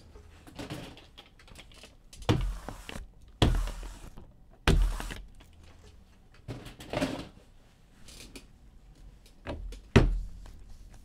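Objects being handled and set down on a tabletop: four sharp thunks, the loudest near the end, with rustling and sliding noises between them.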